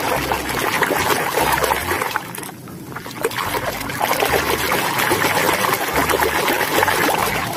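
Water pouring and splashing over a muddy toy vehicle as it is washed, easing off briefly about three seconds in.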